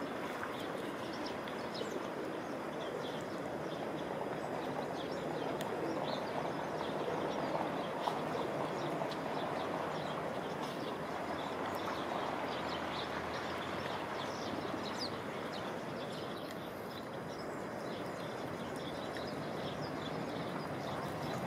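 Steady outdoor background noise with many short, high bird chirps scattered over it.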